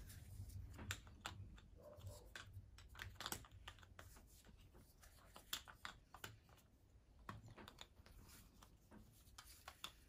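Faint, irregular clicks and taps of board game tiles and pieces being set down on the game board.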